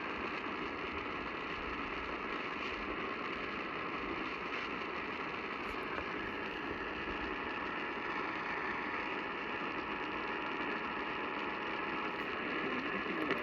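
AM radio static from weak reception of a 700 kHz station: steady hiss and crackle, with a few faint steady tones buried in the noise that fade out near the end.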